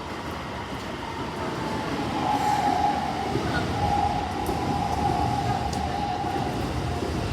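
A Keikyū Line electric train moving through the station with a low rumble and a steady whine that swells about two seconds in.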